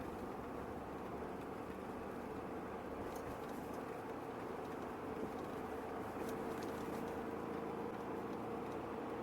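Steady car driving noise heard from inside the cabin: engine hum and tyre noise on a snowy, icy street.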